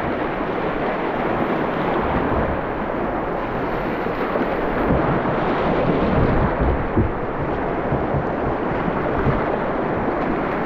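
Whitewater of a class 2 river rapid rushing around a kayak, close up. Waves slap and splash against the kayak's bow in a cluster of low thuds about halfway through.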